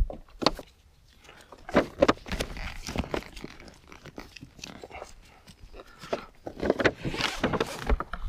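A bag and its webbing straps being handled and threaded through loops while the bag is fitted to a motorcycle saddle: irregular rustling and scraping of the bag material and straps, with a few short clicks.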